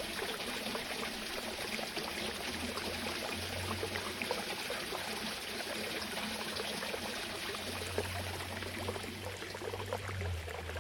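Water flowing and trickling steadily, with many small splashes and drips.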